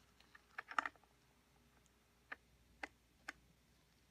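Metal socket clicking against the shredder blade's retaining nut on a Stihl SH86C impeller as it is tried on the nut and pulled off: a quick run of clicks in the first second, then three single clicks about half a second apart.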